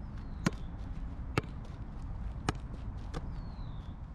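Football being juggled with the feet: sharp thuds of the ball striking the foot, about once a second, over a steady low background rumble.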